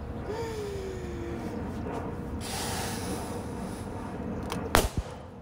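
Breath hissing into a large balloon as it is blown up by mouth, then a sharp pop near the end as the balloon bursts.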